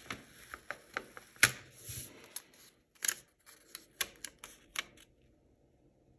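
Paper sticker being handled: crisp paper rustles and sharp fingernail clicks as it is peeled off and pressed onto a paper planner page, in a quick irregular run for about five seconds.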